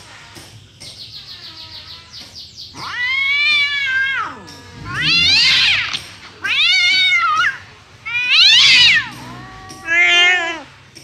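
A feral black cat yowling angrily: about five long drawn-out calls, each rising and then falling in pitch, starting about three seconds in.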